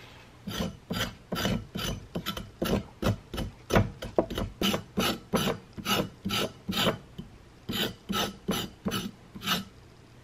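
Kitchen knife scraping the skin off a burdock root in quick repeated strokes, about three a second, with a brief pause near the middle and a stop near the end.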